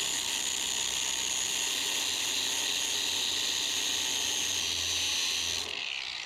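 Power drill spinning a steel lug nut stud held against an abrasive, a steady grinding hiss as the stud is ground down to size. It eases off near the end.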